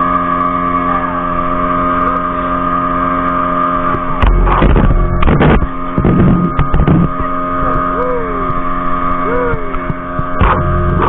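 Motorboat engine running at a steady pitch, with loud rushing, buffeting bursts about four to seven seconds in and again near the end.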